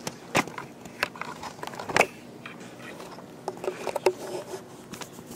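Scattered knocks and scrapes over quiet classroom room noise, the two sharpest about half a second and two seconds in.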